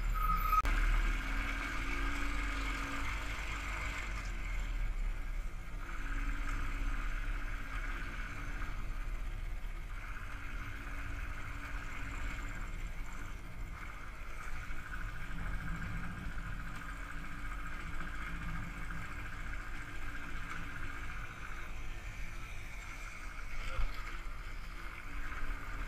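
Royal Enfield Thunderbird's single-cylinder engine running steadily as the motorcycle is ridden, picked up by a camera mounted on the bike, with a brief sharp sound near the end.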